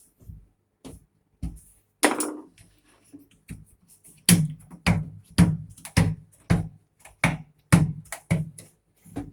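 Sharp knocks or taps: a few scattered ones, a louder hit with a short ring about two seconds in, then a steady run of knocks at about two a second.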